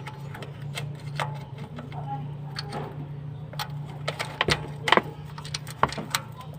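Irregular sharp clicks and knocks, thickest and loudest a little past the middle, over a steady low hum.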